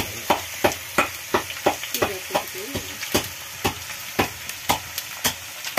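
Chicken pieces frying and sizzling in a metal kadai, stirred with a utensil that knocks against the pan about three times a second.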